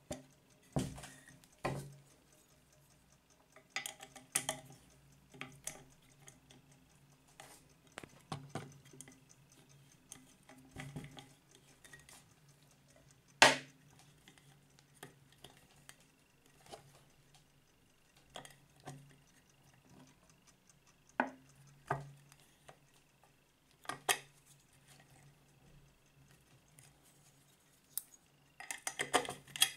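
Scattered metal clicks, clinks and knocks as a Soviet submarine wall clock's metal case is handled and a steel key is pushed into and drawn out of the lock hole in its side. One sharp knock comes about halfway through, and a quick run of clicks near the end.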